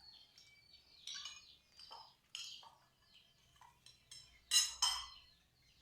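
Spoons clinking against plates during a meal: a few scattered sharp clinks, the loudest two close together near the end.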